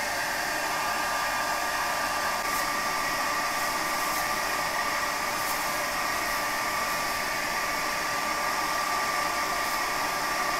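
Handheld hair dryer running on its high setting as the air blower for a brake-drum coal forge. It makes a steady rush of air with a constant high motor whine.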